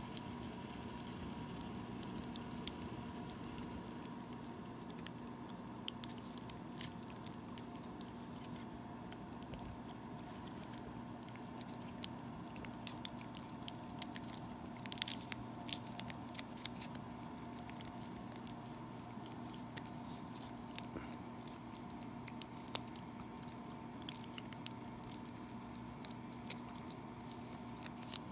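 A cat licking paste treat from a squeeze tube: quick, irregular wet tongue clicks and smacks, with a small flurry about halfway through, over a steady low hum.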